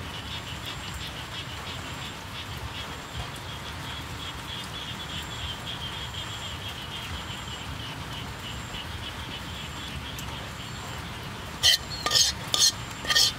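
Steady rapid insect chirring, then near the end a few loud, sharp scrapes of a metal utensil against a wok as thick chili sauce is scraped out.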